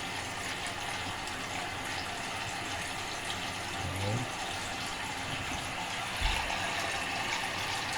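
Toilet tank fill valve running, a steady hiss of water flowing into the tank while the valve tower is being adjusted. A short low knock about six seconds in.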